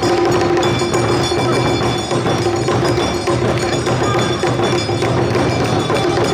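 Live Awa odori dance music: a band of drums and percussion with ringing metallic strokes and a sustained melody line.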